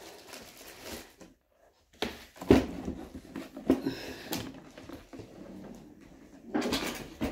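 Rummaging through a craft box: scattered knocks and rustling as things are moved about, with the loudest knock about two and a half seconds in and a longer rustle near the end.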